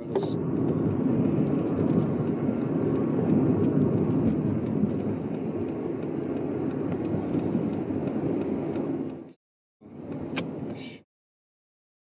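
Steady low rumble of a car's engine and tyres heard from inside the moving car. It cuts off abruptly about nine seconds in, comes back briefly for about a second, then cuts out again.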